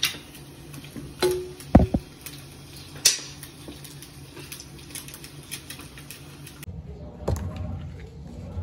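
Scattered knocks and clinks of kitchen utensils and dishes being handled while food is prepared. The loudest is a heavier thud with a brief ring just under two seconds in.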